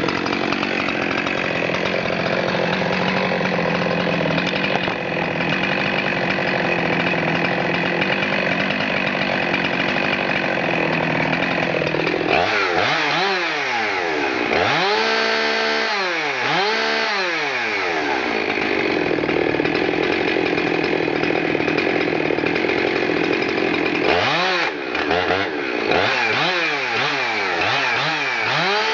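Husqvarna 372 XPW two-stroke chainsaw running at high speed and cutting a log. About twelve seconds in, and again near the end, its engine pitch rises and falls in repeated sweeps as the throttle is worked, with a steady stretch in between.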